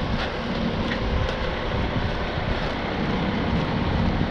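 Wind buffeting the microphone: a steady, heavy low rumble with no breaks.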